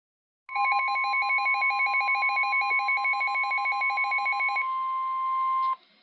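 A weather alert radio sounding the NOAA Weather Radio warning alarm for a tornado warning: the steady 1050 Hz alert tone, overlaid for about the first four seconds by rapid pulsing alarm beeps. The beeping stops, then the steady tone cuts off abruptly just before the end.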